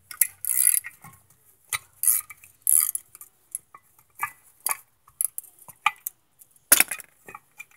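Steel brake parts and tools clinking and scraping as a ratchet turns a bolt through a rear disc-brake caliper bracket. There are a few short scraping bursts in the first three seconds, then scattered clinks and one sharp metal knock near the end. The bracket is slightly out of line, and the bolt is binding hard enough to cut metal shavings.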